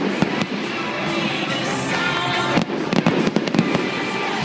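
Aerial fireworks bursting: quick clusters of sharp bangs and crackles near the start and again about three seconds in, with music playing underneath.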